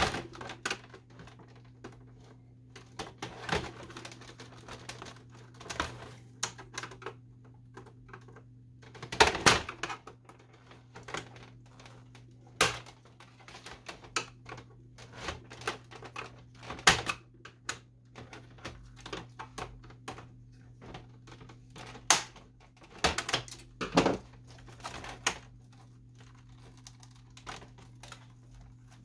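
Irregular plastic clicks, snaps and knocks from a Canon Pixma MG6220 printer's plastic housing being pried and unclipped with a screwdriver and handled, with a few louder knocks among them, over a steady low hum.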